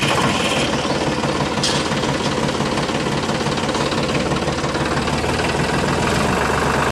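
A motor running steadily with a low, rough, knocking rumble. It starts and stops abruptly.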